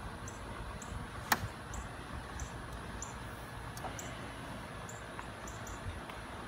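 Outdoor ambience: a steady low rumble with faint, short high chirps repeating every half second or so, and one sharp click just over a second in, the loudest sound.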